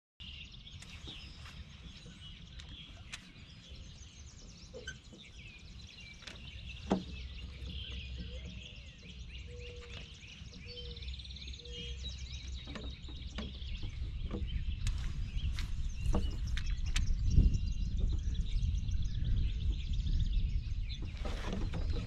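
Many birds chirping and singing together, over a low rumble of wind on the microphone that grows stronger in the second half. One sharp click about seven seconds in.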